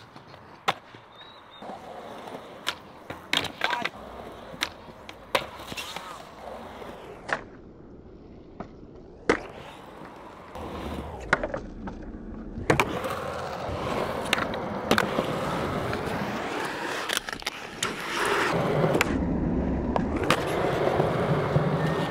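Skateboard wheels rolling on concrete, broken by many sharp cracks of the tail popping and the board landing as tricks are done over bumps and banks. The rolling grows louder in the second half.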